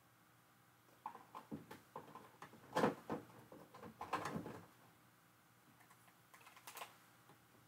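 Small craft supplies being handled on a desk: a scatter of light clicks and taps, busiest in the middle, with a few more near the end.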